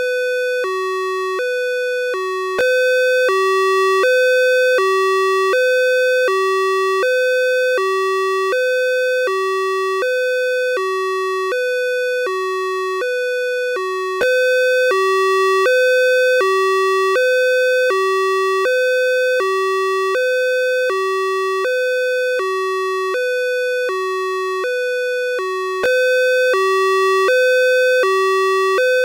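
Two-tone hi-lo ambulance siren, alternating steadily between a higher and a lower note, each held about half a second.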